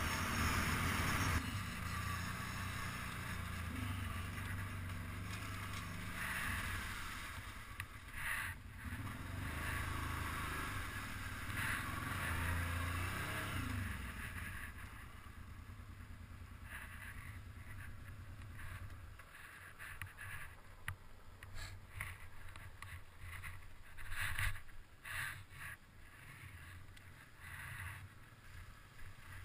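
ATV engine running under way, its pitch rising and falling with the throttle. In the last third the engine drops away to a low level and scattered knocks and crackles, tyres over gravel and sticks, take over.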